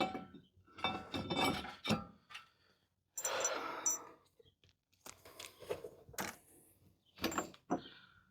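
Handling noises: scattered clicks, clinks and scrapes, with a rustling, tearing noise lasting about a second that starts about three seconds in.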